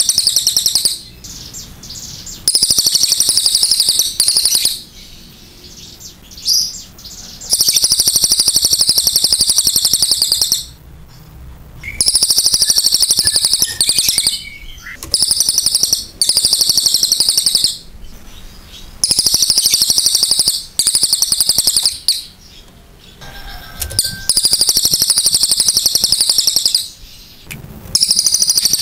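Crested jay (cililin) singing its long, very fast, high-pitched rattling trill, given in bursts of one to three seconds about ten times.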